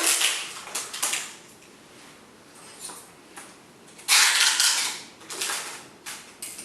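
Adhesive tape being pulled off its roll and wrapped around a bundled folding screen door: several short rips, with a longer one about four seconds in.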